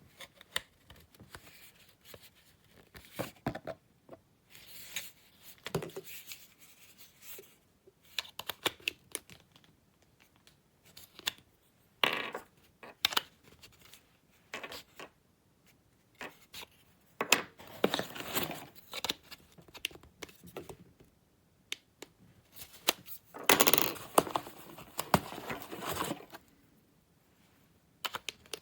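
Irregular handling noise: small clicks, scrapes and rustling of small plastic parts being picked up and fitted together, with no motor running.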